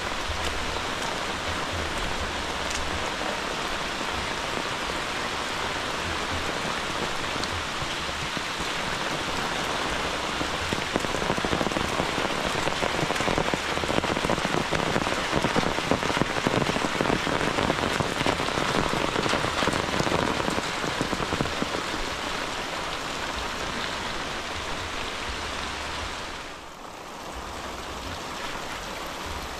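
Heavy rain falling steadily on leaves, puddles and the muddy ground. It grows louder about a third of the way in, eases off again, and dips briefly near the end.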